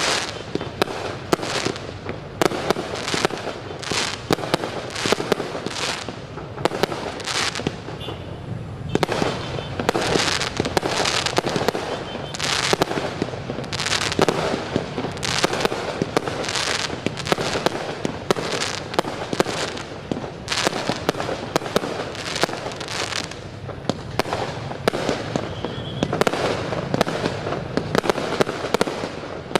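Fireworks going off in a rapid, unbroken barrage of bangs and crackling, several reports a second.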